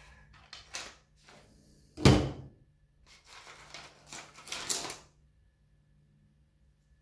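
Hands handling a small plastic plant pot and potting mix: a few light clicks, a sharp knock about two seconds in, the loudest sound, then rustling and scraping for a couple of seconds before it goes quiet.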